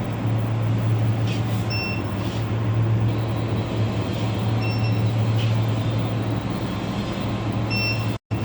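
Induction melting furnace running: a steady low electrical hum over a noisy machine whir, with a short high beep about every three seconds. The sound cuts out for a moment near the end.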